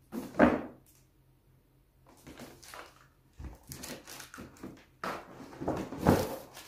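A cardboard gift box being handled: a knock as it is held up, then rustling and scraping as its ribbon is untied and hands rummage inside. The rustling is loudest near the end.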